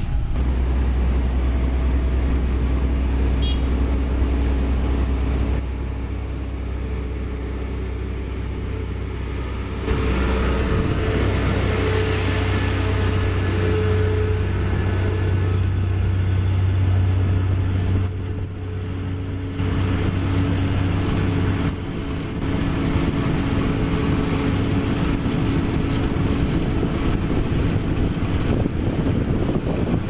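Heavy diesel engines of a Mitsubishi Fuso dump truck and a Sumitomo HA60C asphalt paver running at work: a steady low drone. The drone changes in level and pitch abruptly several times.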